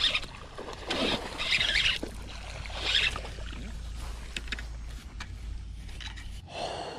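A hooked largemouth bass splashing at the surface, in several bursts over the first three seconds, as it is hauled to the bank, then flopping on the grass, over a steady low rumble.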